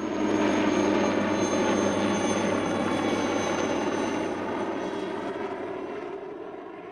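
Aircraft engine drone, steady and dense, that comes in suddenly and slowly fades away.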